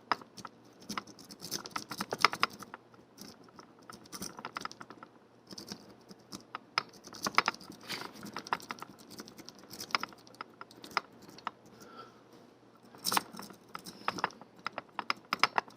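Dimple rake working in the keyway of a dimple padlock against a tension wrench: a fast, irregular run of small metallic clicks and scrapes as the rake is rocked over the pins.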